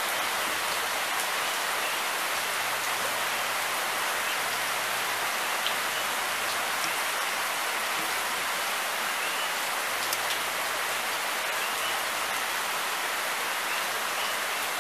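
Rain falling steadily, an even hiss of drops that does not let up.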